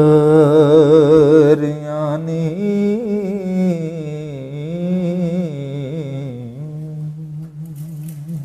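A man singing the closing line of a Punjabi Sufi kalam, holding the last syllable on a long note with wide vibrato. About a second and a half in it drops to a softer, slowly wavering melisma that fades and then stops suddenly.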